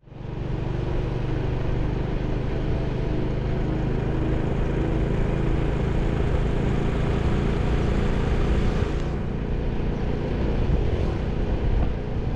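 Small step-through motorcycle's engine running at a steady cruising speed, mixed with the rush of wind on the microphone. The rush eases slightly about nine seconds in.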